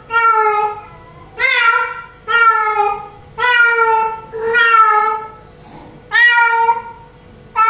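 Female cat in heat calling for a male: six loud, drawn-out meows in quick succession, each lasting under a second.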